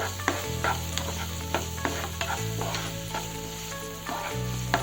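Sliced onions and ginger-garlic paste frying in oil in a pan, sizzling, while a spatula stirs and scrapes against the pan in quick, irregular strokes.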